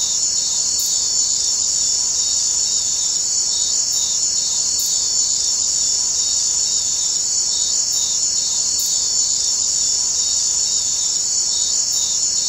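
A dense, steady, high-pitched chirring of an insect chorus, unbroken throughout, with a slight regular pulse in it.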